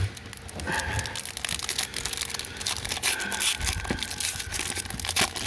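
Foil wrapper of a Magic: The Gathering booster pack crinkling irregularly as it is handled.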